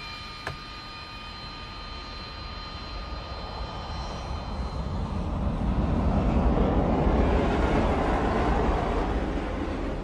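Military fighter jet's engines: a steady high whine at first, fading out, then a broad rushing jet noise that swells to its loudest in the second half and eases off slightly near the end as the jet rolls along the runway.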